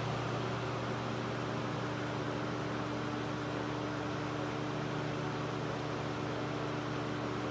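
Mikado Cool Aire Super Deluxe 12-inch box fan running steadily on high speed with its rotating grille mechanism engaged: an even motor hum over a rush of airflow.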